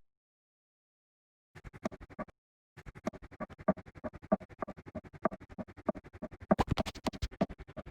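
Knocking run through a voice-changer effect, turned into a rapid stuttering train of clicks, more than ten a second, with a pitched ring. It starts after about a second and a half of dead silence, breaks off briefly, then runs on, with a few louder knocks near the end.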